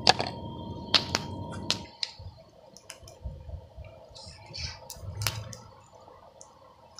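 Sharp clicks and knocks, and a steady rushing noise that stops about two seconds in. Then a red-hot forged steel hole punch is plunged into water to quench it, with a brief burst of hissing and bubbling about five seconds in.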